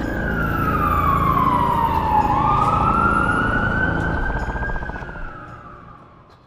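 Police siren sound effect wailing: its pitch falls, then rises again and slowly sinks as it fades out near the end, over a low rumble.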